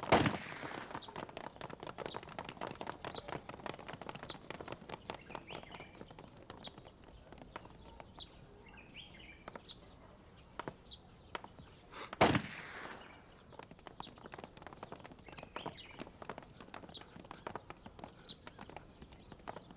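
Soldiers' boots running and walking across a floor in quick, uneven steps, with a loud crash right at the start and another about twelve seconds in. Faint short high chirps sound here and there.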